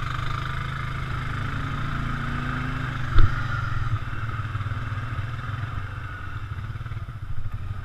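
Honda Rancher 420 ATV's single-cylinder engine running under load while it tows a stuck ATV free of the mud. A single sharp thump comes about three seconds in, and the engine eases off about a second later.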